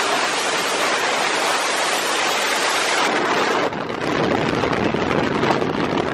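Wind rushing and buffeting over a phone's microphone held out the window of a moving car, mixed with road noise. A little over halfway through, the rush dips briefly, then turns lower and rougher.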